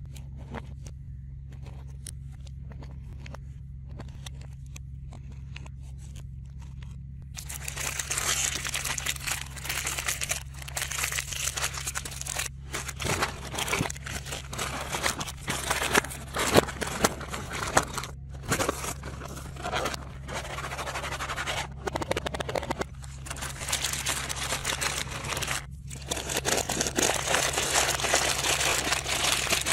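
Crinkling and rustling of plastic snack wrappers and a cardboard box being handled, starting about seven seconds in and going on in dense bursts. Before that there are only a few light taps of biscuits on a bamboo platter. A steady low hum runs underneath.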